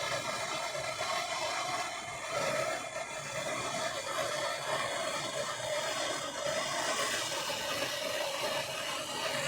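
Handheld gas blowtorch flame burning with a steady, continuous hiss, heating a seized fork damper bolt to free it from corrosion in the aluminium fork.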